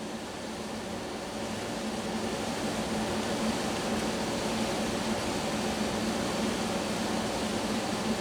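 Steady fan-like hiss with a low hum, growing slightly louder over the first few seconds.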